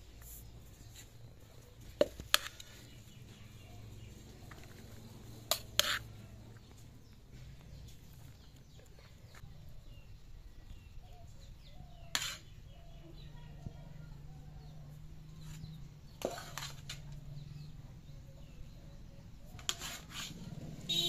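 Metal serving spoon clinking against an aluminium pot as cooked rice is scooped out and served onto banana leaves: sharp single clinks every few seconds, some in quick pairs.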